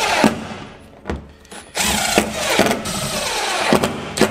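Cordless AEG impact driver driving screws through a plastic inspection port's rim into a boat floor. It runs in two bursts: the first stops about a quarter second in, and the second runs for about two seconds from just under two seconds in.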